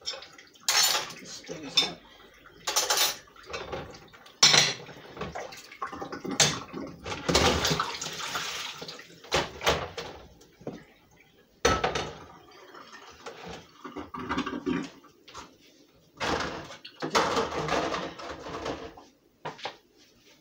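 Boiled pasta being drained at a kitchen sink: a metal saucepan and sieve knocking and clattering, with water pouring through the sieve in a couple of longer stretches.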